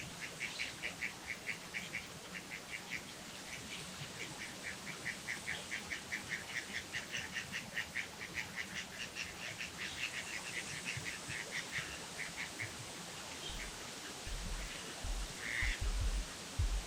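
A bird calling in a rapid, even series of short notes, about five a second, that stops about three-quarters of the way through. A few low thumps follow near the end.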